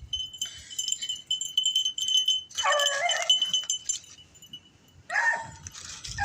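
Rabbit hounds giving voice: one long bawl about two and a half seconds in, and a shorter one near the end. Before the first bawl there is a light metallic tinkling and jingling.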